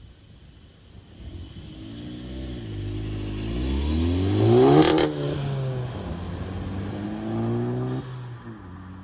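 Exhaust of a 2018 VW GTI's turbocharged 2.0-litre four-cylinder through a GTI TCR muffler, accelerating: the note climbs steadily for several seconds, breaks off sharply with a short hiss about halfway through, holds lower, then drops again near the end.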